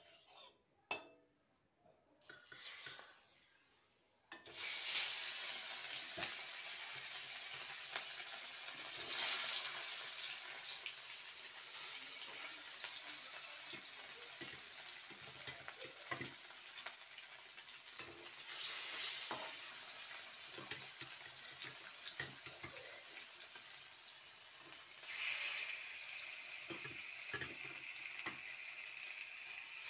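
Fish steaks frying in hot oil in a stainless-steel kadai: a steady sizzle that starts about four seconds in and flares louder several times, with light knocks of a spatula against the pan.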